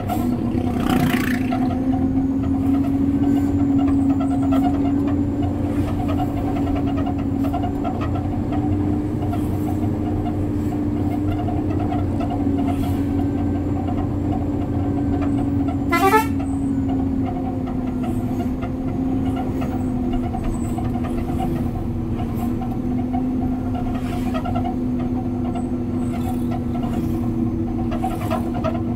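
Concrete mixer truck driving along the road: a steady engine drone with a constant humming tone that barely changes. A short sharp rising sound cuts through a little past halfway.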